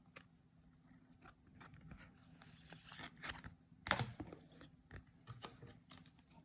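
Trading cards and plastic card sleeves being handled: faint scratching and crinkling with scattered clicks, the loudest click about four seconds in.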